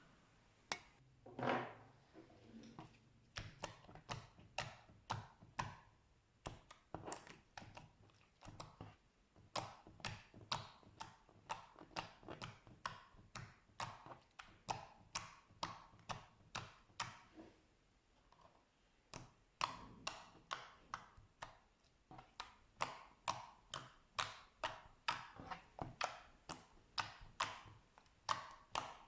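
Slime being pressed and poked by hand, making a steady run of small sticky clicks and pops, a few a second, with a short pause about two thirds of the way through.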